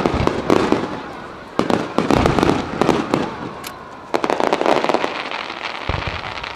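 Starmine fireworks: shells bursting in quick succession, deep booms followed by crackling, with fresh volleys about a second and a half, two seconds and four seconds in.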